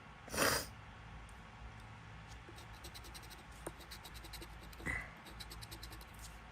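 Faint scraping of a scratch-off lottery ticket being scratched, in quick runs of short strokes. Two louder brief noises come about half a second in and near five seconds.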